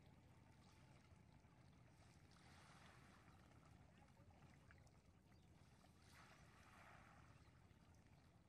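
Near silence: faint outdoor ambience, with two soft hisses about two and a half and six seconds in.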